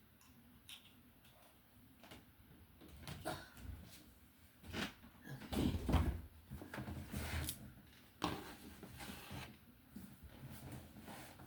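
Scattered knocks, clicks and rustling of things being handled and moved about, with a heavier thump about six seconds in.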